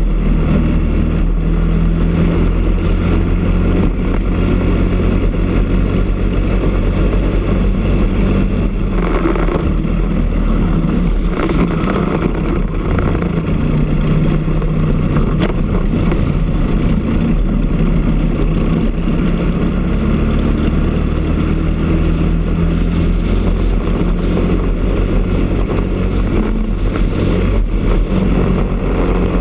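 Briggs & Stratton LO206 four-stroke single-cylinder kart engine running hard at racing speed, heard from the kart itself. The revs drop for a corner about a third of the way in and build back up through the second half.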